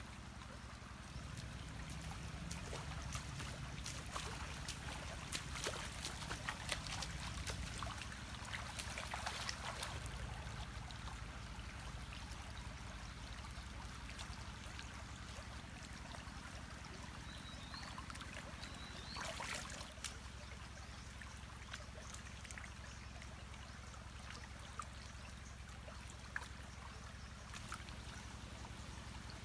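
Shallow stream water trickling and splashing as a person wades through it and rinses fish by hand in the water. Busy small splashes fill the first third, and a louder splash comes about two-thirds of the way through.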